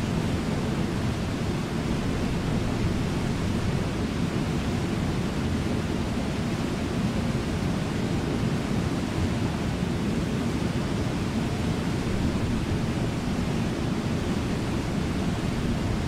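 Steady rush of water pouring over a low, wide river waterfall (Brooks Falls) and its rapids, an even, unbroken sound weighted to the low end.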